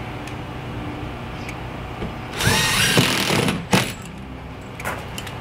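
Cordless drill driving a 1.5-inch screw into cement board: about halfway through, the motor spins up with a rising whine for about a second and a half as the screw goes in, then stops with a sharp click.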